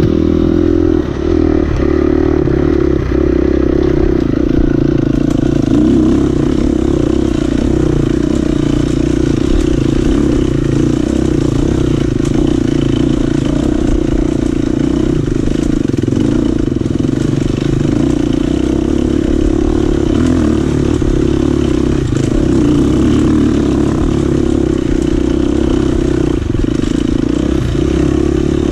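Dirt bike engine running at a steady throttle while riding a rough dirt trail, with occasional knocks and rattles from the bike over the bumps.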